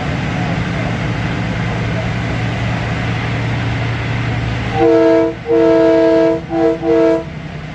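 Electric commuter train running steadily with a low rumble and hum. About two-thirds of the way through, a loud multi-note train horn sounds four blasts: long, long, short, then a slightly longer one.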